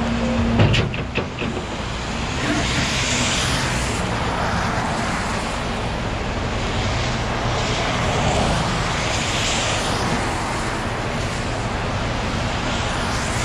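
Flatbed tow truck's engine running steadily while its winch pulls a car up the wet deck, with a few metal clanks about a second in. Passing freeway traffic hisses by on the wet road twice.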